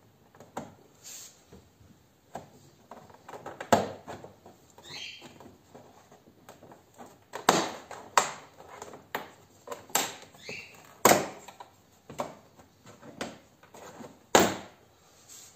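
Plastic door trim around an inner door handle being pried off its clips: irregular sharp clicks and knocks of plastic against the door, with a couple of brief plastic squeaks.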